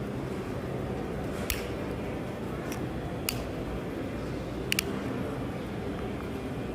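A few sharp clicks from a car key fob's plastic shell being handled, the last a quick double click, over a steady low hum.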